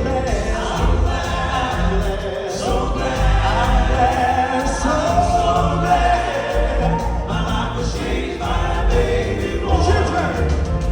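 Live Southern gospel music: a male vocal quartet singing in close harmony over band accompaniment with a strong, steady bass.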